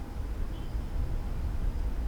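Strong gusting wind buffeting the microphone: an irregular low rumble, with a faint steady tone in the background.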